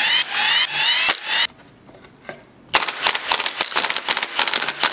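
Milwaukee cordless power tool backing out valve cover bolts on an LS V8: a whirring run with a rising pitch for about a second and a half, a short pause, then a fast, even run of rattling clicks through the second half.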